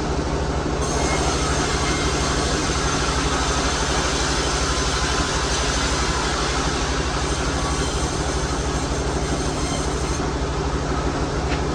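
Sawmill machinery running steadily: a low motor drone under a dense, even hiss of the saw working the timber.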